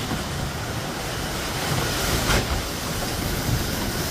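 Heavy storm surf surging through a boat harbor, a steady loud rumble of moving water and wind. A single sharp knock about two seconds in.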